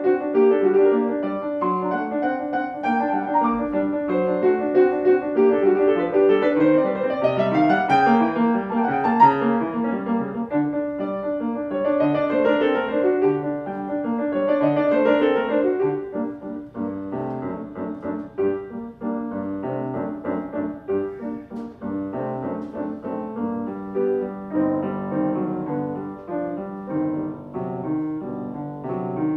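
Solo piano playing a classical piece, with a quick rising run a third of the way in and a softer passage of separate notes in the second half.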